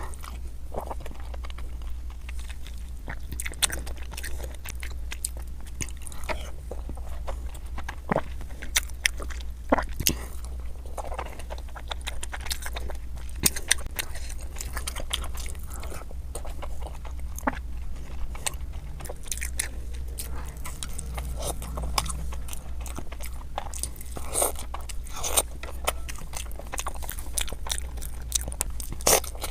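Close-miked chewing and biting of Indian sweets: many irregular clicks and crunches throughout, over a steady low hum.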